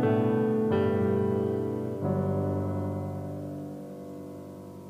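Background piano music: sustained chords, a new one struck twice, the last ringing out and slowly fading.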